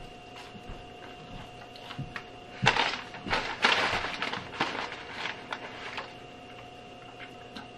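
Large brown paper takeout bag crinkling and rustling as a hand rummages inside it: a run of crackles lasting about three seconds, starting nearly three seconds in.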